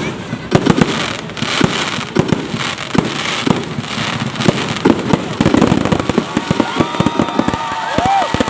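Fireworks display going off: a dense run of bangs and crackles following one another without a break.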